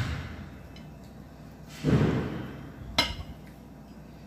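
Handling of food and tableware at a meal table: a dull knock about two seconds in, then a sharp click about a second later.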